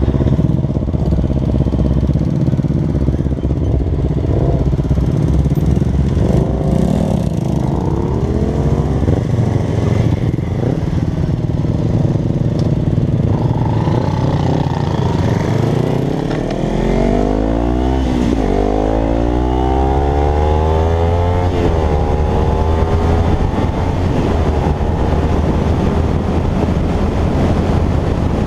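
Several motorcycles idling together, then a small Kawasaki Ninja's parallel-twin engine pulls away and accelerates hard through the gears. Its pitch climbs and drops back with each of several upshifts.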